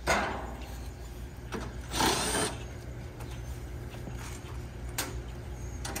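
Tool noise at the outdoor AC unit's access panel while its tight screws are being worked out: a knock at the start, a short rasping burst about two seconds in, and a few light clicks.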